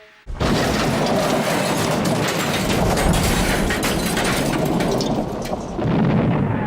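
A loud, rumbling noise full of crackling that starts suddenly just after the start and lasts about six seconds, the kind of boom or crash used as a sound effect.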